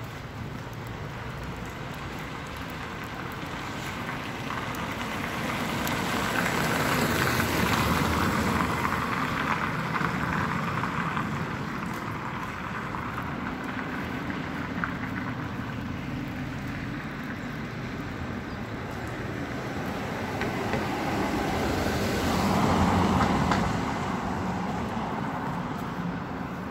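Cars passing on a wet street, their tyre noise swelling up and fading away twice: once about a quarter of the way in and again later on, over a steady background of city traffic.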